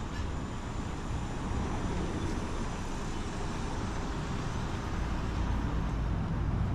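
City street ambience: a steady low rumble of road traffic that grows slightly louder toward the end.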